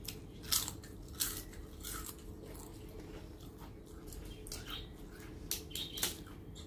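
Crisp fried papad (papadum) being bitten and chewed, with several sharp crunches spread irregularly over the few seconds.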